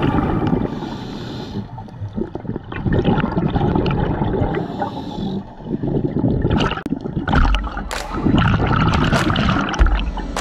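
Scuba diver breathing underwater through a regulator: a short hissing inhale followed by a long rush of exhaled bubbles, twice.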